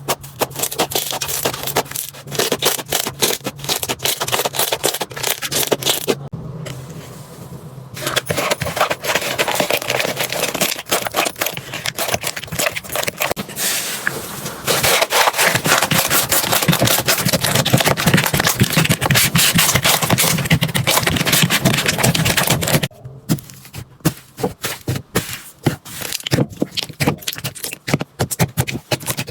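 Slime being squished, pressed and stretched by hand, giving a dense run of wet crackling, clicking and popping. The sound changes abruptly several times as one slime clip cuts to the next, and is loudest in the middle stretch.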